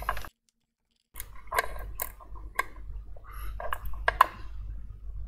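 Small sharp clicks and taps of an iPhone 13 display being handled and its flex connector pressed onto the logic board, the loudest about four seconds in. A low steady hum sits underneath.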